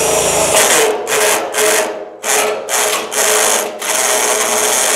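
DeWalt DCD780 cordless drill driving a 120 mm bi-metal hole saw against a steel drum in high speed (2nd gear), run in about seven short bursts as the trigger is pulled again and again. The saw stalls in the steel and the drill's clutch, set to its highest torque rather than drill mode, slips and ratchets instead of turning it. At this speed the bi-metal saw won't cut.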